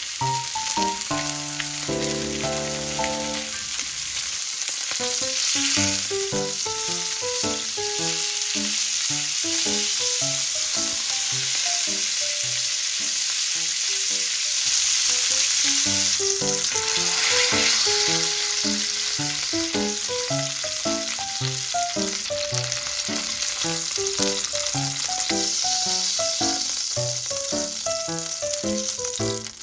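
Thick meat steaks searing in oil in a grill pan, a steady dense sizzle, over light background music.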